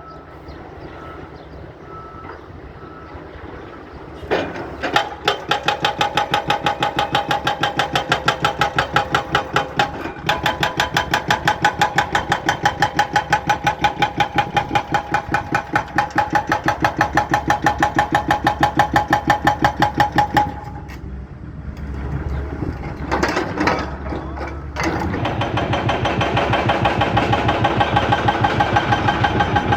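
Excavator-mounted hydraulic breaker hammering in a fast, even stream of blows over the excavator's engine. It starts about four seconds in after the engine alone, stops about two-thirds of the way through, and starts hammering again a few seconds later.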